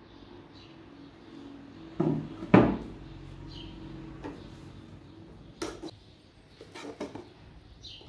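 Cookware and dishes being set down and handled on a wooden table: two knocks about half a second apart, the second louder, then a few lighter clicks near the end.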